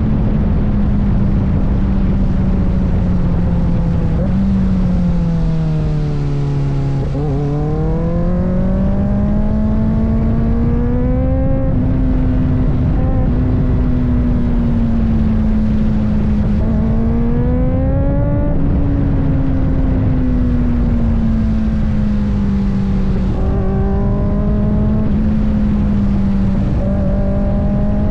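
Kawasaki ZX-4RR's 399 cc inline-four engine under way, its pitch climbing in several rising sweeps under acceleration and easing back in between, over heavy wind rush on the microphone.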